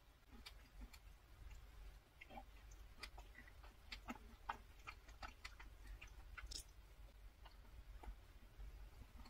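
Faint close-up chewing of a macaron, with scattered small crunches and clicks.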